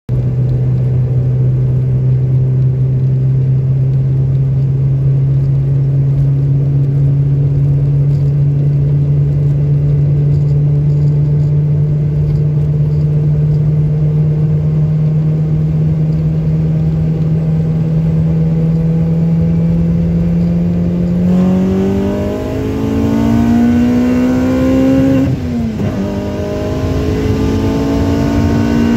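Race car's engine heard from inside the car while driving, running at a steady cruise with its pitch creeping up slowly. About 21 seconds in it revs up, drops briefly at a gear change around 25 seconds, then settles at a higher steady note.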